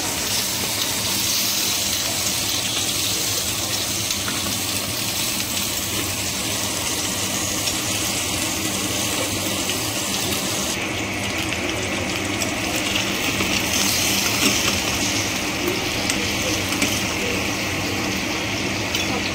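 Onion, tomato, ginger and garlic sizzling as they fry in hot oil in a pan: a steady hiss that thins a little about eleven seconds in.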